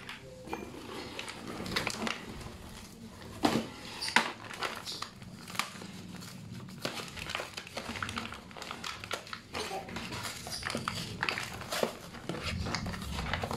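Clear plastic packaging bag crinkling and crackling as hands press and shift the small plastic toy trucks packed inside, with a few sharper clicks and knocks among the rustling.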